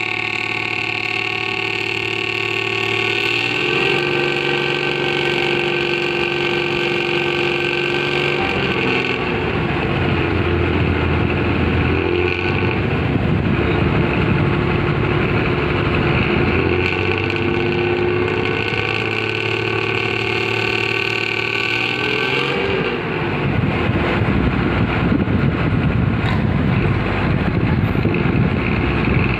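Hino AK1JRKA bus diesel engine running through a racing exhaust. It holds a steady note that steps up a little about 3.5 s in. About 8 s in the note turns to the rough, snoring exhaust growl ('ngorok'), steadies briefly a little after 20 s, then growls again.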